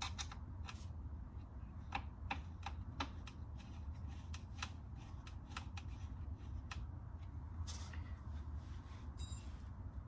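Scattered small clicks and taps of hands handling small hardware, bolts, washers and a tube of RTV sealant, over a low steady hum. A little after nine seconds comes one louder, ringing high-pitched metallic click.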